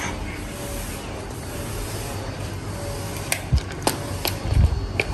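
A few sharp clicks and knocks as a plug-in socket tester is handled and pushed into a wall socket, in the last two seconds, over steady low background noise.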